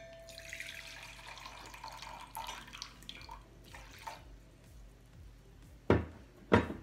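A cup of boiling water being poured into a bowl, splashing for about three seconds. Two sharp knocks come near the end.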